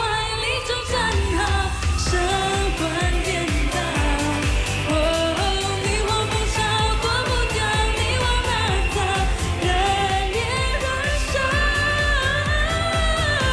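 A woman singing a Mandarin pop song into a handheld microphone over a backing track with a steady, heavy beat.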